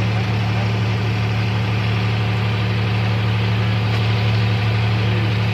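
John Deere 5310 tractor's three-cylinder diesel engine running at a steady speed, a constant low hum without revving.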